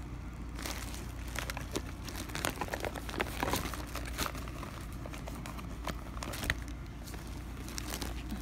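Makeup packaging handled by hand: irregular crinkling and rustling with small crackles, busiest in the first half and again near the end.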